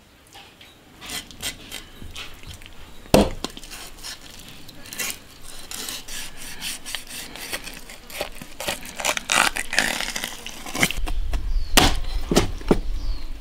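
Cleaver scraping along a snakehead fish on a plastic cutting board, with scattered sharp knocks of the blade against the board. One loud knock comes about three seconds in, and a few more near the end as cutting starts.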